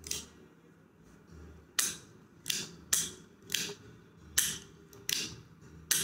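Petrol (fluid) lighter being struck again and again, about eight sharp flint-striker scrapes less than a second apart, as the petrol-dampened wick is brought to light. It is burning by the end.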